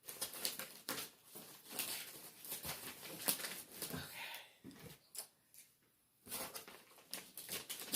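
Packaging being unwrapped and torn open by hand: irregular rustling and crinkling in fits and starts, with a short pause about six seconds in.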